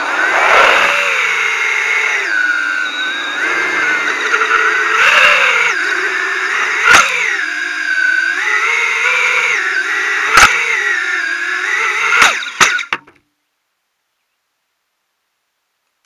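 FPV quadcopter's brushless motors and propellers whining, heard from the drone's own onboard camera, the pitch rising and falling with the throttle. A few sharp clicks come in the last seconds, and the sound cuts off about thirteen seconds in as the motors stop.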